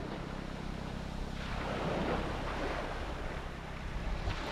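Small waves washing onto a sandy beach, one wash swelling about two seconds in, with wind rumbling on the microphone.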